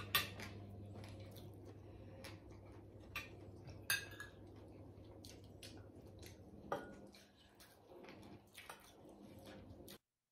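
Fork and spoon clinking against plates a few times as people eat, over a faint low steady hum; the sound cuts off to silence near the end.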